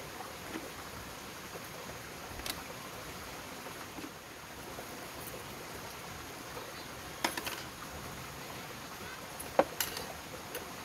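A few light metallic clicks and clinks as thin metal tent pegs and cords are handled and set on a table, the clearest about seven and ten seconds in, over a steady quiet background hiss.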